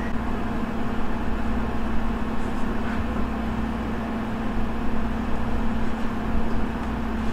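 Steady mechanical hum of a machine running in the room, with one held low tone over an even drone.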